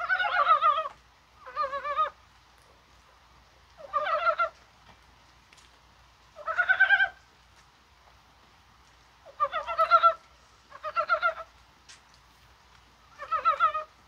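Korean brown frogs (mountain frogs) croaking in their early-spring breeding chorus. There are about seven short calls, each a rapid run of pulses under a second long, spaced one to three seconds apart.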